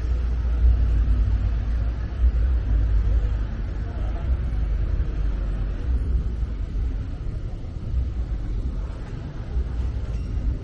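Steady city background noise dominated by a low rumble, with faint voices in the mix.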